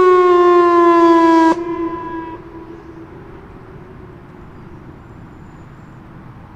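Whelen WPS-2910 electronic outdoor warning siren sounding a loud tone that slides slowly down in pitch. The tone cuts off abruptly about a second and a half in, and its echo fades out over the next second, leaving faint outdoor background noise.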